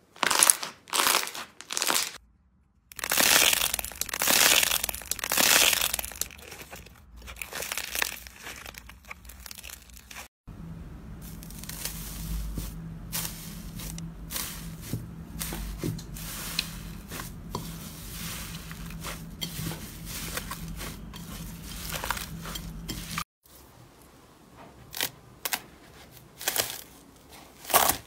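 Hands squeezing and patting thick slime, giving short bursts of sticky squishing and popping. Then slime under sheets of metallic foil, pressed and rubbed, crinkling steadily over a faint low hum. Near the end, hands push into foam-bead slime (floam), with a few faint crunches.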